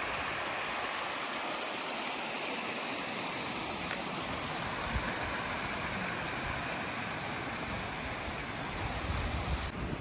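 Shallow mountain stream running over rocks: a steady rushing wash of water. Low wind rumble on the microphone near the end.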